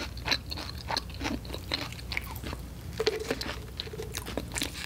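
Close-miked crunching and chewing of a crispy fried hash brown: irregular crisp crunches between quieter chewing.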